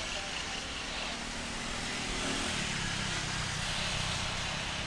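Distant Boeing 777-300ER GE90 jet engines on the runway: a steady rumble and hiss whose low rumble grows louder about halfway through.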